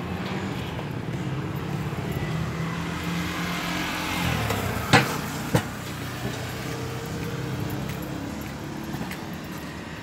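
A motorcycle engine running as it passes on the road, getting louder and then dropping in pitch as it goes by about four seconds in. Two sharp clicks follow about a second later.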